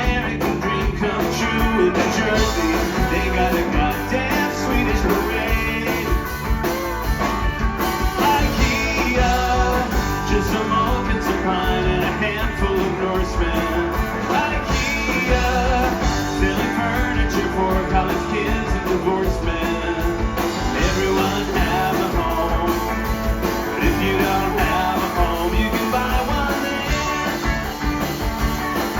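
Live band playing the instrumental close of a guitar-driven rock song, with no lyrics.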